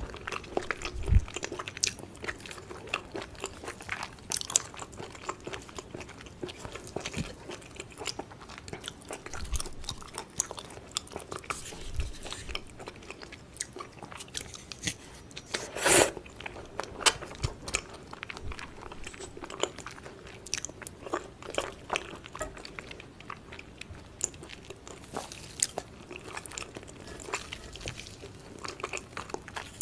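Close-miked chewing of yukhoe (Korean raw beef tartare): a steady run of short wet mouth clicks, with one louder, sharper crunch about halfway through.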